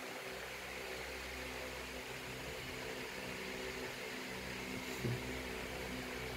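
Steady background hum and hiss with no clear event, and one brief soft thump about five seconds in.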